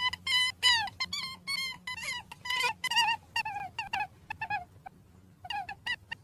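Rabbit squeaking: a rapid series of short, high squeaks, several a second, many dropping in pitch, with a pause of about a second near the end.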